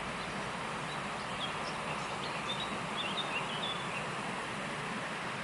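Small birds chirping briefly several times over a steady rushing outdoor background noise.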